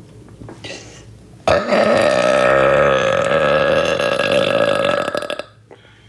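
A woman's long, loud burp, starting about a second and a half in and held at a fairly steady pitch for about four seconds before cutting off.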